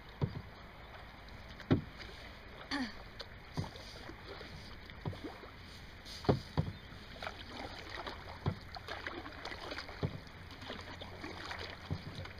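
Canoe paddling: paddle strokes dipping into calm water, with sharp irregular knocks and splashes about once a second as the paddles strike the water and the canoe.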